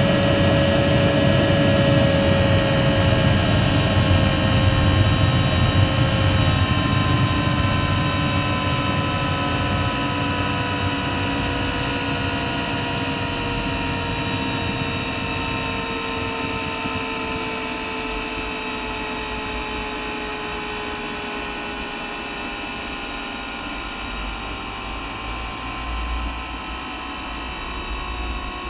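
Eberspacher Airtronic 1 diesel air heater in its shutdown cool-down run, its blower fan whining and slowly falling in pitch as it winds down. A low rumble under it fades away over the first ten seconds or so, and the whole sound grows gradually quieter.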